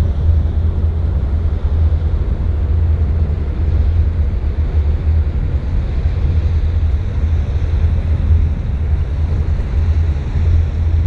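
Steady low rumble of wind buffeting the microphone on the bow of a Sea Ray Sundancer cruiser under way, with the rush of water along the hull.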